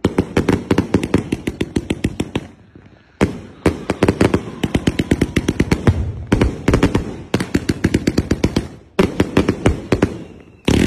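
Fireworks going off in rapid volleys: many quick bangs in runs of two to three seconds, about four runs, with brief pauses between them.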